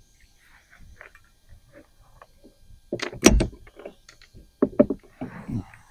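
Knocks and clattering against a plastic kayak hull as a freshly landed bass and gear are handled. The loudest is a cluster about three seconds in, with a deep thump, followed by a few more sharp knocks near the end.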